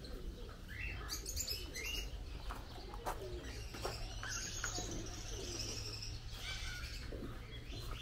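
Aviary pigeons cooing, mixed with many short chirps from small birds.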